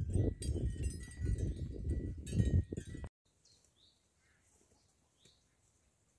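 Wooden rigid heddle loom clattering and knocking as it is worked, cutting off suddenly about three seconds in. Then faint outdoor quiet with a few short bird chirps.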